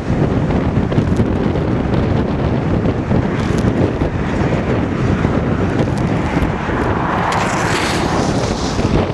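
Strong wind buffeting the microphone, a steady low rumble, with a louder hissing gust from about seven to eight and a half seconds in.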